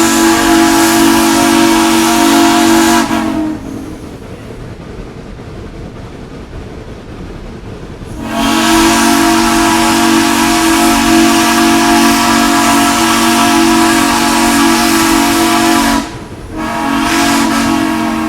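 Steam locomotive's chime whistle blowing: a blast ends about three seconds in, a long blast of about eight seconds follows, then a shorter one near the end. A steady rumble and hiss of the running train fill the gaps.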